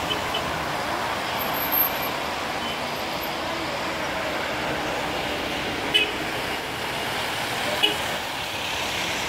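Steady road traffic noise from cars and a minibus passing on a wet road, with a few brief sharp sounds about six and eight seconds in.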